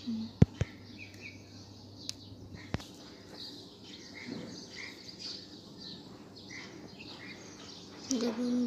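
Short bird chirps scattered through the background. A few sharp clicks come in the first three seconds, the loudest about half a second in. A brief low vocal sound comes near the end.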